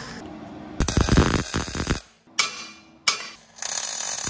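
Gas-shielded MIG welder arc crackling in short runs that stop and start, then runs steadily near the end.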